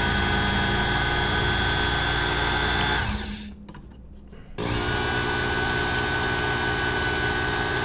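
Work Sharp Ken Onion Edition electric belt knife sharpener running with a fine belt on a knife-sharpening pass. It stops about three seconds in and starts again a second and a half later for another pass.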